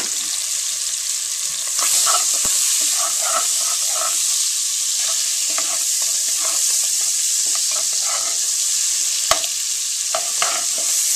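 Chopped onions sizzling in pork drippings in a Dutch oven while a utensil stirs them, with repeated short stirring strokes through the steady sizzle. The sizzle gets louder about two seconds in, and there is one sharp click of the utensil against the pot near the end.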